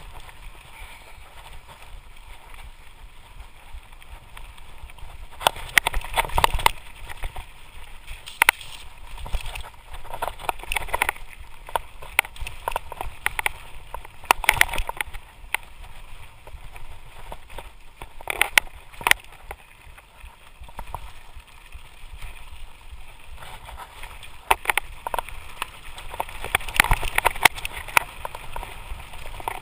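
Lapierre Spicy full-suspension mountain bike descending rough forest singletrack at speed: tyres rumbling over dirt and roots under a steady rush of air on the camera microphone, with irregular clattering knocks and rattles from the bike over bumps, in clusters around 6, 15, 19 and 27 seconds in.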